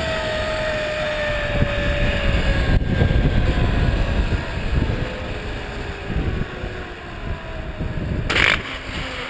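Zipline trolley pulleys running fast along the steel cable, a whine of several tones that slowly falls in pitch as the rider slows toward the landing, over heavy wind rumble on the chest-mounted microphone. A short, harsh clatter comes near the end.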